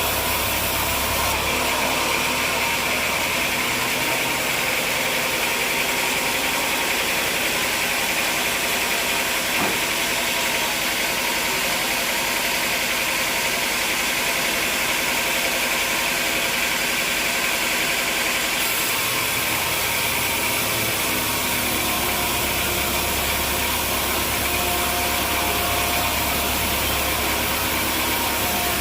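An engine running steadily under a continuous machinery noise. Its low hum fades about four seconds in and comes back about twenty-one seconds in.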